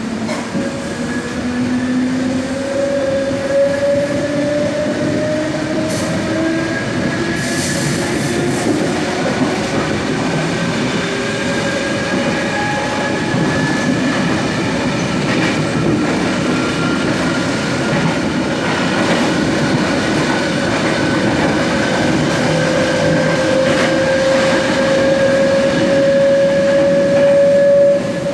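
Trensurb Series 100 Hitachi electric train's traction motors roaring loudly while under way, heard on board over the running noise of wheels on rails. Their whine climbs slowly in pitch throughout as the train gathers speed, with a brief high hiss about six and eight seconds in.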